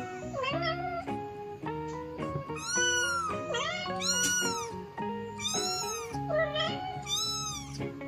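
A young kitten meowing repeatedly, calling for its mother: a series of high, arching meows, about one every second and a half. Background music plays underneath.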